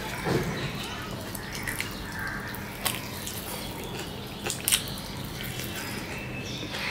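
Close-up eating sounds: fingers squelching as they mix rice with curry on plates, and chewing with wet mouth clicks. A few sharp wet smacks stand out, two close together near the end.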